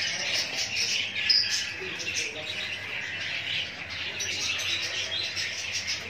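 Many small cage birds chirping and tweeting together, a dense, continuous chatter of short high calls.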